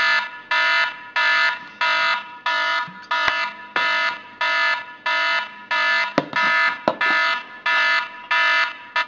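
Smartphone alarm ringing: a loud pulsed electronic tone repeating about twice a second, which cuts off near the end as a finger taps the screen to switch it off.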